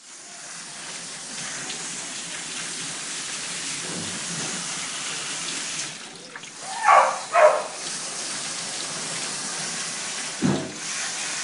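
Water spraying steadily from a handheld dog-wash sprayer onto a wet dog's coat, a hiss that drops away briefly about six seconds in. Two short loud sounds come just after it resumes, and a single thump near the end.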